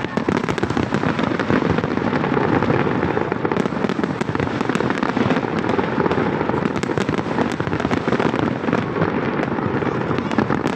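Fireworks display: many shells bursting and crackling at once, a dense, continuous crackle and popping with no pauses.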